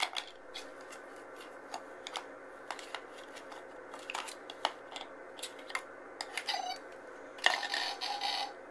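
Plastic shape pieces clicking and knocking against a plastic shape-sorter toy as a toddler handles them, a scattering of light taps. Near the end a denser, noisier clatter lasts about a second.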